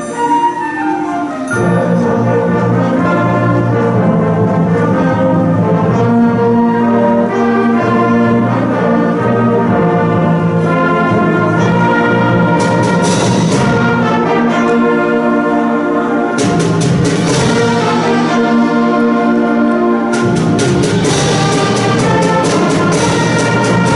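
Middle school concert band playing a Christmas arrangement: sustained brass and woodwind chords over a low bass line that comes in about a second and a half in. Bright percussion shimmers join about halfway through and again near the end.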